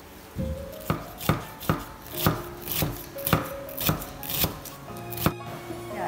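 Large kitchen knife chopping lemongrass stalks on a thick wooden chopping block: sharp knocks at about two a second that stop a little after five seconds in. Background music plays underneath.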